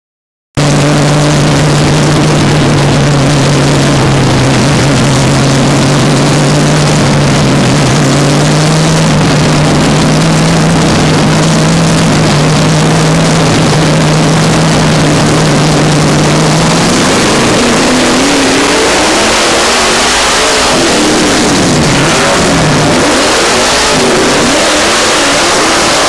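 Dirt-track late model race car's V8 engine, heard from inside the cockpit. It starts abruptly about half a second in and holds a steady pitch for most of the first two-thirds. From about two-thirds of the way through, the revs climb and fall repeatedly as the car accelerates, over a constant noisy rush.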